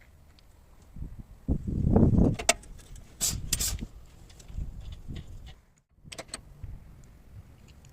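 Workshop handling noises: irregular dull knocks and rustling, loudest about two seconds in, with a few short sharp clicks in between.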